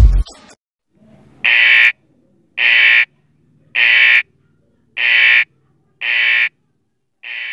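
Electronic alarm beeping: six short, evenly spaced beeps about one a second, the last ones fading quieter.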